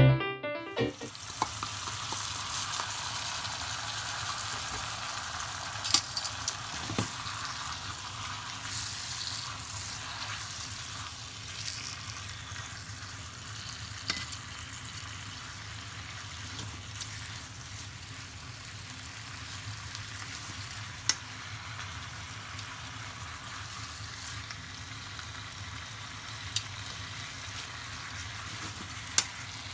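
Pork slices, sliced onion and ginger sizzling steadily in a frying pan as they are stirred and turned with tongs. The sizzle starts about a second in, and a few sharp clicks of the tongs on the pan come through it.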